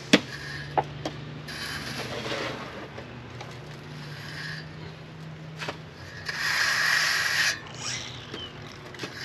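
Steel finishing trowel scraping across a gritty gravel bedding layer as it is smoothed, in three strokes, the longest and loudest near the end, with a couple of sharp stone clicks near the start.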